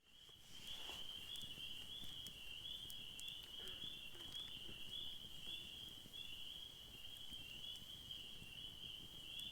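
Chorus of spring peepers calling, a faint, dense, steady high-pitched peeping that runs on without a break.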